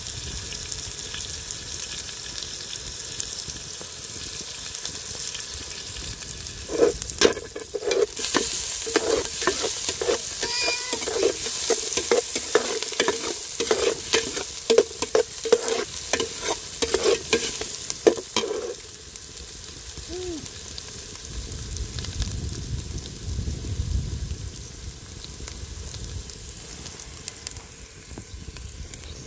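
Food sizzling in a pan, with a metal utensil stirring and scraping against it in a quick run of ringing knocks from about seven seconds in to about eighteen seconds, while the sizzle gets louder. After that the frying goes on more quietly.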